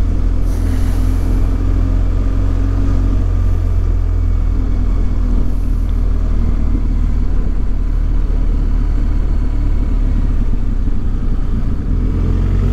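Motorcycle running at low town speed, a steady engine note under heavy wind rumble on the microphone.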